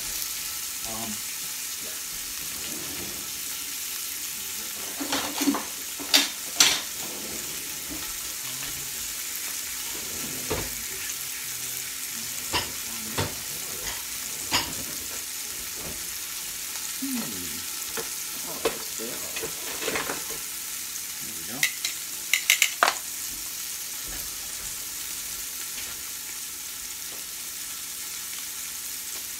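Chunks of short rib beef searing in hot olive oil in a pot, a steady sizzle as the meat browns. Scattered sharp clicks and knocks cut through it, the loudest about six seconds in and again a little past twenty-two seconds.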